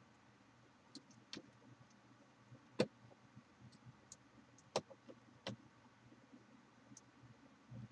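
A handful of sharp clicks and knocks from a plastic PC cooling fan and liquid-cooler parts being handled and fitted, the loudest about three seconds in and another near five seconds, over a faint low hum.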